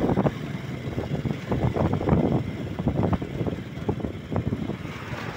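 Ride noise from a moving two-wheeler: wind rushing and buffeting over the microphone, with road and engine rumble underneath.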